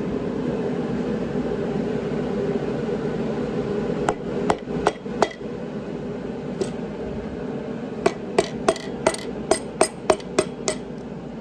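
Hammer blows tapping a piston out of its cylinder bore during an engine teardown: four sharp taps about four seconds in, then a quick run of about ten blows near the end.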